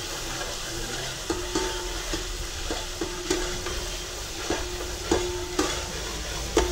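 Onions frying in oil in a large stainless-steel pot, stirred with a long metal ladle: a steady sizzle with repeated clanks as the ladle strikes the pot, each leaving a short metallic ring. The onions are fried to medium brown, the base for nihari.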